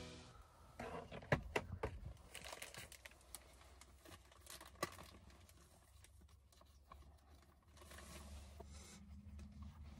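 Faint rustling and crinkling of plastic packaging being handled and torn open, with scattered small clicks and taps, mostly in the first half. A faint low hum comes in near the end.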